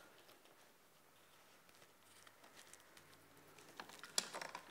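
Near silence, then a few faint clicks and rustles near the end as the trolling motor's power and plug leads are handled.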